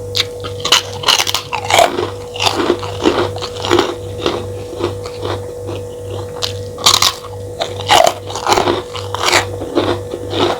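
Close-miked mouth sounds of a person eating: irregular crunching, biting and chewing, with a few louder crunches about seven and eight seconds in.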